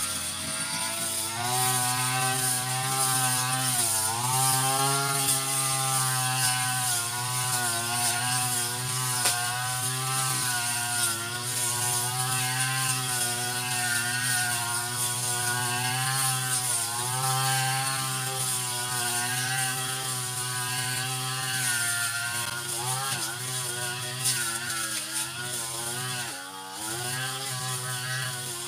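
Brush cutter engine running steadily at high speed while cutting weeds around oil palms, its pitch dipping briefly about four seconds in and several times near the end.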